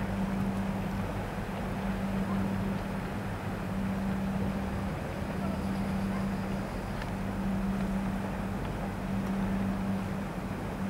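Boat engine running steadily, a constant low hum, under a haze of wind noise.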